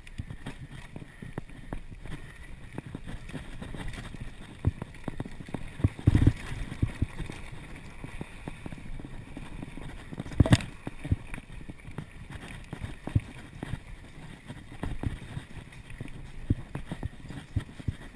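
Mountain bike ridden over a dirt singletrack: the tyres rumble on the dirt while the bike rattles and knocks over bumps and roots, with two sharp jolts about six and ten and a half seconds in.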